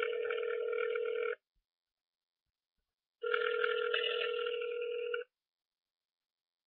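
Ringback tone of an outgoing call heard through a mobile phone's speaker: the called line ringing, not yet answered. A steady buzzing tone stops about a second and a half in, then sounds again for about two seconds.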